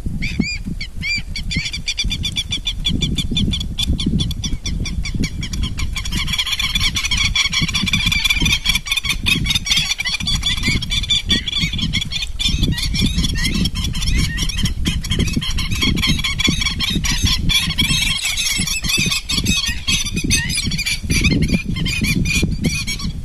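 A flock of waterfowl calling, many overlapping calls at once, the chorus growing denser about six seconds in, over a low rumble.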